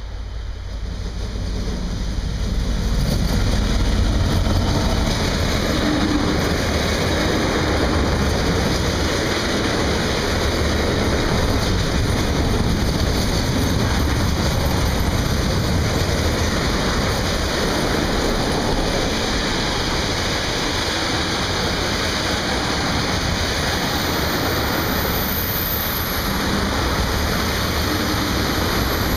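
Freight train passing close by: the diesel locomotive's engine grows louder over the first few seconds as it goes past, then a long string of container wagons rolls by with steady wheel-on-rail rumble. A brief high-pitched squeal comes near the end.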